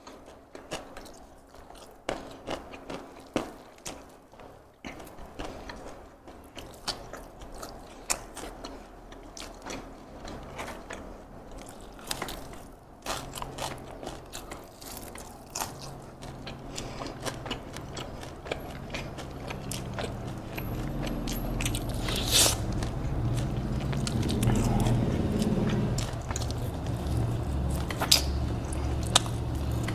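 Close-miked eating: fingers working rice, then biting and chewing fried chicken, with many small wet clicks. The sounds grow louder in the second half.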